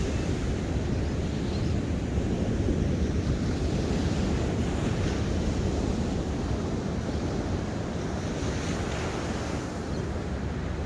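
Ocean surf washing in steadily, the hiss swelling gently with incoming waves, over a low wind rumble on the microphone.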